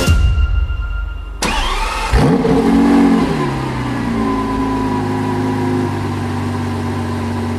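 Lamborghini engine starting: it flares up in revs about two seconds in, then drops back and settles to a steady idle.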